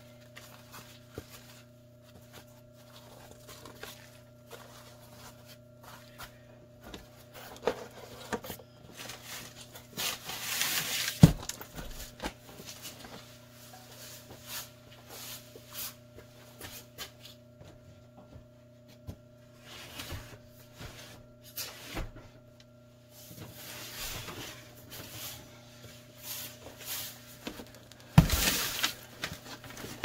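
Newspaper and cardboard worm-bin covers being handled: paper rustling and scraping, with a sharp thump about eleven seconds in and a longer rustle near the end. A steady low hum sounds beneath it.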